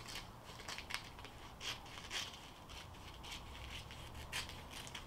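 Small scissors cutting through a glossy magazine page: a quick, irregular run of faint snips as the blades work along a straight line.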